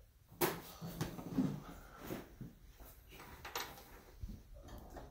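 Scattered clicks and knocks of hands working the mechanism of a Gamewell fire alarm gong and indicator unit, at irregular intervals, with no bell ringing.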